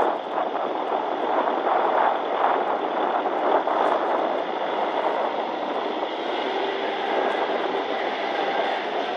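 Kubota L4508 tractor's diesel engine running hard under load as the stuck tractor tries to climb out of deep paddy mud, a steady noisy drone.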